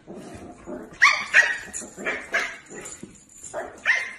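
Dog barking: a string of short, high barks starting about a second in, coming in bunches.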